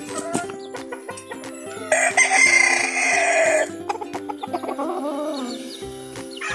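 A gamecock crows once about two seconds in, a loud crow lasting nearly two seconds, followed by softer chicken calls around the fourth and fifth seconds.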